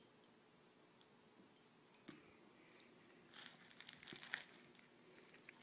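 Faint room tone, then about three seconds in a brief patch of crinkling and light clicking handling noise as a laser is picked up from bubble wrap.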